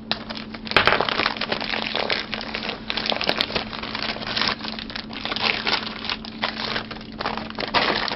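Plastic and paper packaging being handled by hand, crinkling and rustling continuously with many small crackles as a parcel is torn open.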